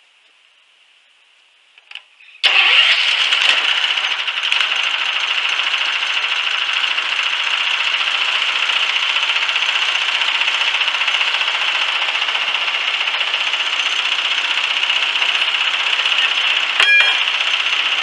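The small gasoline engine of a homemade bandsaw sawmill starts suddenly about two seconds in, after a brief sound of starting, and then runs steadily at high speed. There is one sharp click near the end.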